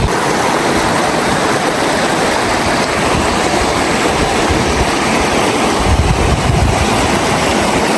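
River water rushing steadily over rocks, a loud even hiss. There are a few low rumbles about six seconds in.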